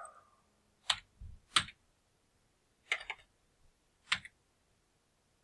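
Computer mouse and keyboard clicks: four short, sharp clicks spread over about three seconds, with a faint low thud between the first two.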